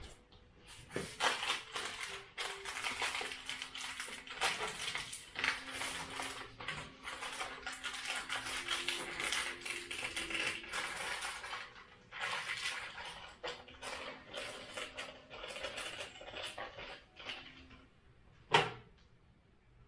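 Plastic food packaging crinkling and rustling in dense irregular bursts as it is torn open and handled, with one sharp loud knock near the end.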